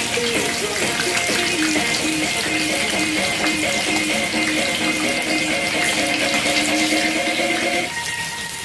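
Whole red snapper deep-frying in hot oil in a cast-iron skillet, a steady sizzle throughout. Background music plays over it and stops near the end.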